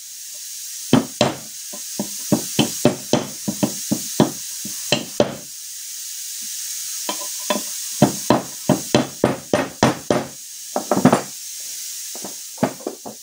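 A plastic mallet tapping a small socket to drive the gear-shift shaft oil seal into the aluminium crankcase half of a 1991 Honda CR250R two-stroke engine. The sharp taps come about three a second, pause briefly about five seconds in, then go on in a second run.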